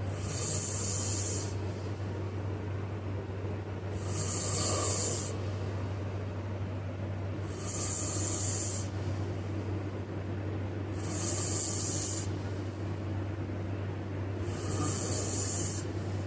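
A sleeping person snoring: five breathy, hissing breaths, one about every three and a half seconds, over a steady low hum.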